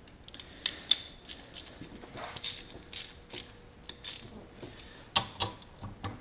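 Hand ratchet wrench clicking in short, irregular runs as bolts on a Kawasaki JS550 jet ski's exhaust pipe are worked loose, with light clinks of metal tools.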